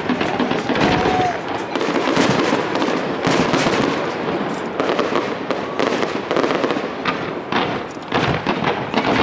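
Fireworks display: shells bursting one after another in quick succession, many sharp bangs over continuous crackle, with no pause.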